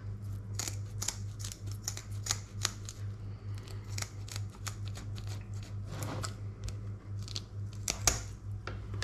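Kitchen scissors snipping through the spiny dorsal fin of a sea bass: a run of sharp, irregular snips and clicks of the blades closing.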